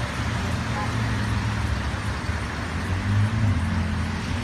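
Car engines running in slow traffic wading through floodwater, with a steady low hum over a constant wash of noise.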